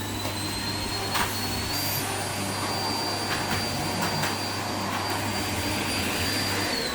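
Household vacuum cleaner running, with a steady high motor whine over a low hum and airflow noise. The whine steps up in pitch about two seconds in, and the motor winds down near the end. A few short knocks come through, as from the nozzle bumping things.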